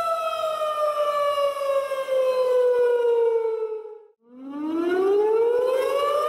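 Outdoor tornado warning siren wailing: a steady tone slides down in pitch over about four seconds, dies away almost to nothing, then winds back up to full pitch.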